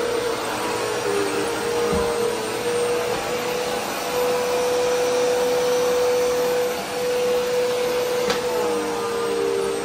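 Bagless upright vacuum cleaner running with its hose wand in use: a steady motor whine over a rush of air. Its lower tones waver briefly near the start and again near the end. A low bump comes about two seconds in and a sharp click just after eight seconds.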